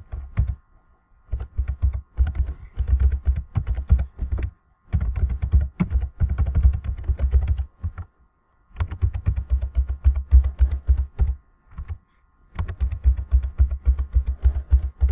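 Typing on a computer keyboard in quick runs of keystrokes a few seconds long, separated by short pauses. Each keystroke lands with a low thud.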